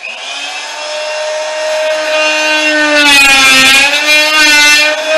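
Oscillating multi-tool (vibration cutter) cutting through ceiling drywall: a steady buzzing whine that starts suddenly, its pitch sagging and the sound growing louder about three seconds in as the blade bites under load.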